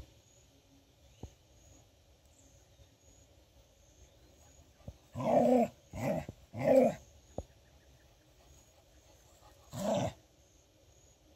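Scottish terrier barking: three short barks in quick succession about five seconds in, then one more near the end.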